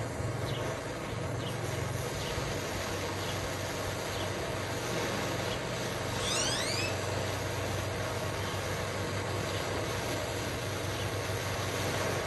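Hand-held propane torch burning with a steady roar while heating a nut held in pliers to bring it very hot for oil blackening. A short rising chirp cuts through about six seconds in.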